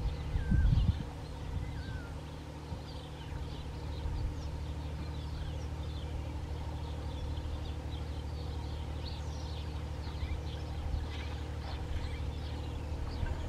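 Shoreline ambience: small birds chirping with many quick, high calls over a steady low mechanical hum, and one loud low thump about half a second in.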